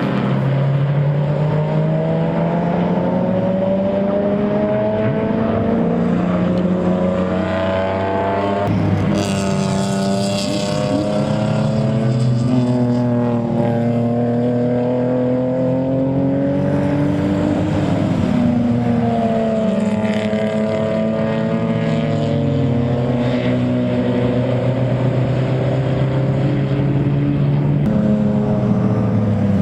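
BMW club race car engines at hard throttle, several engine notes overlapping. Each climbs in pitch through the revs and drops at gear changes and braking.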